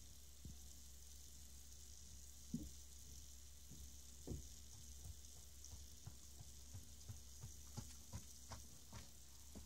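Bacon sizzling faintly in a foil tray on a charcoal barbecue grill, a steady soft hiss with scattered crackles and pops that come more often in the second half.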